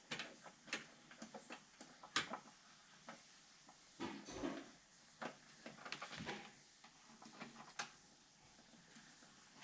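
Computer parts being handled: scattered light clicks and taps, the sharpest about two seconds in, with a short stretch of rustling around the middle.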